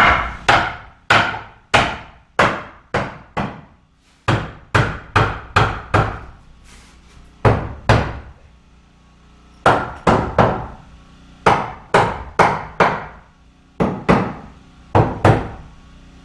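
Hammer driving nails into wood framing: runs of sharp blows, about two or three a second, broken by short pauses, as a framing board for a window opening is nailed in.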